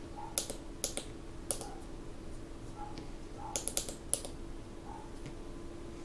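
Breadboard tactile push buttons being pressed, giving a series of sharp clicks: a few scattered over the first second and a half, then a quick run of four or five clicks about three and a half to four seconds in. A faint steady hum sits underneath.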